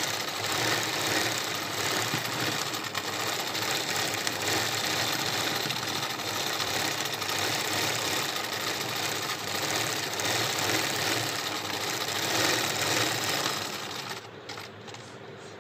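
Electric sewing machine running steadily, stitching free-hand embroidery on fabric held in a hoop. It stops about a second and a half before the end, leaving a few faint clicks.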